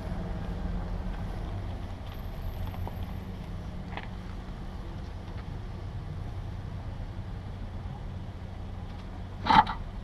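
Steady low hum of a running vehicle engine, with a faint click about four seconds in and a short, sharp, louder sound near the end.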